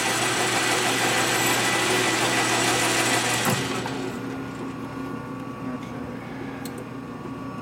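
Metal lathe taking a cut, a steady cutting noise that stops about three and a half seconds in, leaving the machine running with a steady hum.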